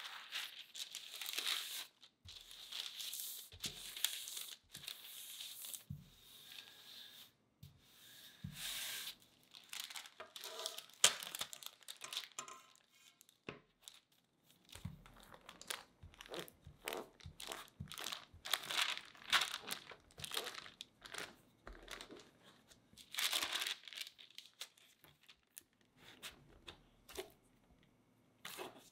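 Parchment paper crinkling and rustling in repeated bursts as it is handled over rolled-out chocolate cookie dough, with a few soft knocks in between.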